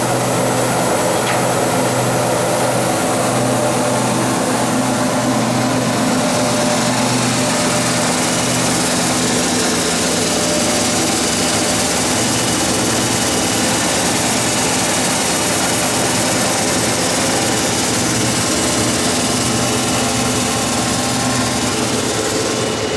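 Estarta 320 centerless grinder running: a steady machine hum made of several held tones, with a high hiss that grows stronger about six seconds in.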